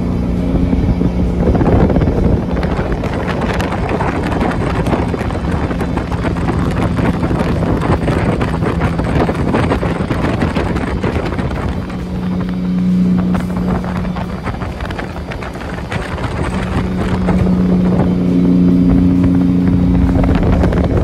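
Jet boat running at speed on a river: a steady engine drone with water rushing under the hull and wind buffeting the microphone. The level dips briefly about three-quarters of the way through, then comes back up.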